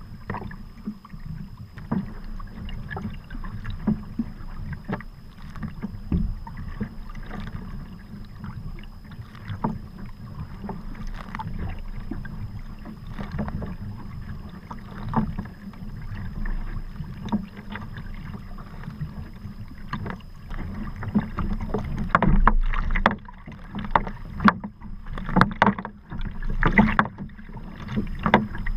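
Sea kayak paddling: the paddle blades dip and splash, and water slaps against the hull over a steady low rumble of wind and water. The splashing grows louder and choppier near the end.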